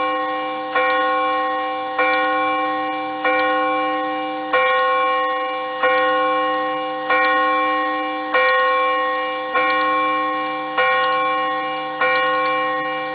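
A tuned steel chime rod in an antique Vienna-style regulator wall clock, struck by the clock's hammer again and again, about once every 1.25 seconds. Each stroke rings one clear, steady note with overtones that dies away slowly until the next. This is the newly cut and tuned replacement rod, ringing cleanly.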